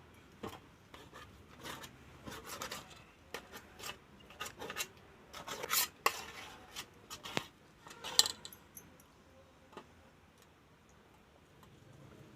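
Cutlery clinking and scraping against a dish in irregular strokes, busiest in the first eight seconds and sparse after.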